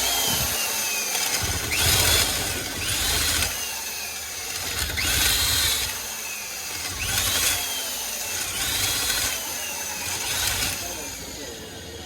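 Electric hand drill with a 10 mm bit boring out a bolt hole in a cylinder head to make a seat for a locating dowel. The drill runs under load, surging every second and a half to two seconds with a falling whine each time, and stops near the end.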